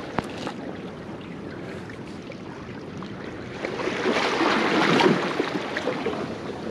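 Seawater sloshing and washing among jetty rocks, with a small surge swelling about four seconds in and easing off a couple of seconds later. A single sharp click near the start.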